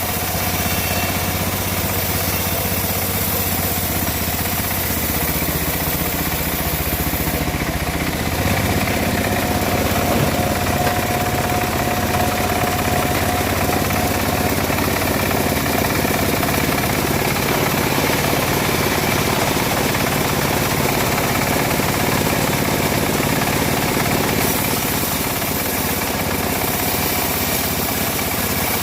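Engine-driven home-built bandsaw mill running steadily while sawing dry teak, getting a little louder about eight seconds in.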